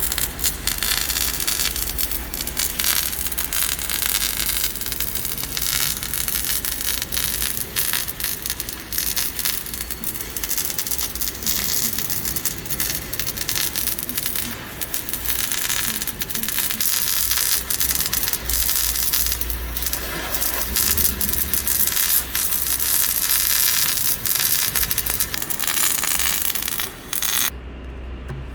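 Electric welding on a hydraulic breaker's steel parts, a continuous crackling sputter that cuts off suddenly near the end.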